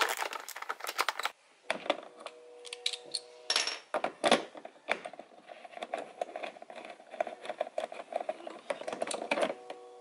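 Ratchet wrench clicking as a bolt at a Nissan 350Z's interior door handle is turned, with the tool knocking against the plastic door trim. A cluster of clicks at the start, a few louder knocks about four seconds in, then a long run of fast clicking.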